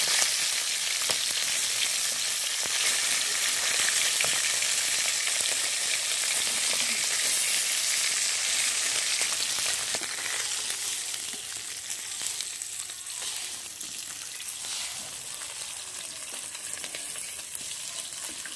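Whole fish sizzling and spattering in hot oil in an open metal pan, with scrapes and taps of a metal spatula as the fish are turned and lifted out. The sizzle grows quieter about ten seconds in.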